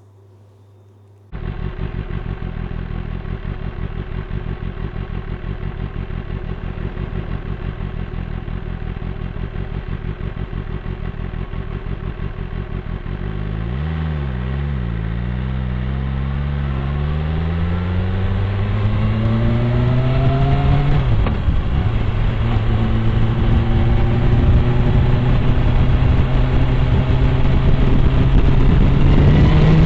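BMW M1000R's inline-four engine heard through the INNOVV K7 dashcam's microphone. It runs steadily at first, then revs rise as the bike pulls away, drop at a gear change about two-thirds of the way in, and climb slowly under way.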